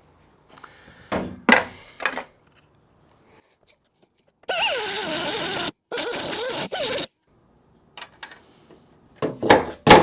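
Steel hammer blows on a punch, trying to drive out a seized Jeep XJ door hinge pin: a rapid run of sharp metallic strikes near the end. Before them come a few light metal clicks and two roughly one-second bursts of a power tool.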